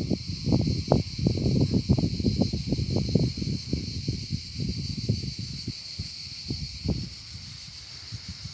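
Steady high-pitched insect chorus, with irregular low crackling and rustling over it that thins out near the end.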